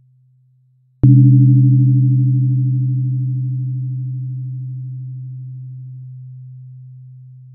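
A 128 Hz tuning fork is struck about a second in with a short click and rings as a low, pure hum that slowly and evenly fades. A few fainter higher tones die out first. Before the strike, the previous ring is dying away.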